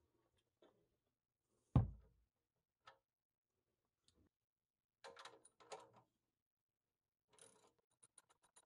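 A single sharp knock about two seconds in, the tight oil drain bolt breaking loose under a breaker bar on the oil pan. Faint clinks and rattles of the tools follow, and near the end a quick run of light, evenly spaced clicks as the bolt is turned out with the socket.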